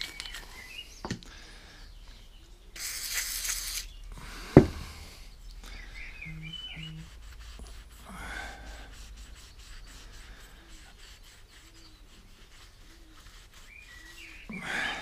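A burst of aerosol spray from a WD-40 can, hissing for about a second, then a sharp knock as the can is set down on the bench. After that comes faint rubbing of a rag on a carburettor float bowl, with a few bird chirps in the background.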